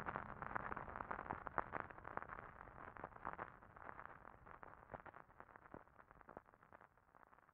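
The last steady tones of a slowed-down song die away at the start, leaving a crackling noise with many scattered clicks that fades out steadily.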